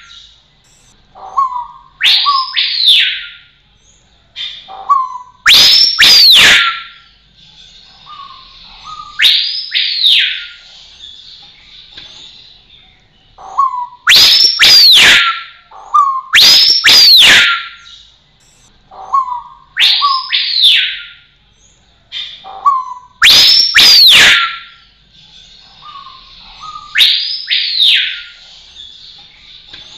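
Rose-collared piha singing: loud whistled calls, each a short low note followed by a note that shoots up steeply and slides back down, repeated about every three to four seconds.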